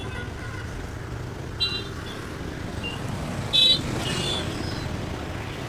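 AI-generated sound effect of busy city traffic: a steady rumble of car and motorbike engines with several short, high rickshaw-style horn toots, the loudest about three and a half seconds in.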